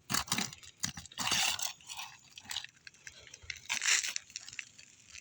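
Asphalt shingles crunching and scraping as they are pried up off the roof deck, with scattered sharp clicks and two longer rasps, about a second in and near four seconds. The shingles are tearing as they are lifted.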